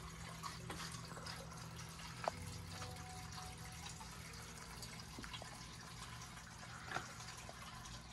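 Water trickling and dripping, with a few small drip-like clicks over a steady low hum and faint sustained tones.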